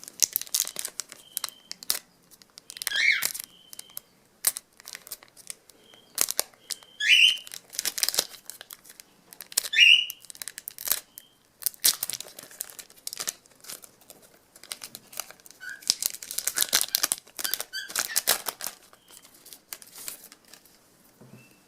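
Trading card pack wrappers being torn open and crinkled by hand: irregular bursts of crackling and tearing. A few short high chirps that dip in pitch come through in the first half.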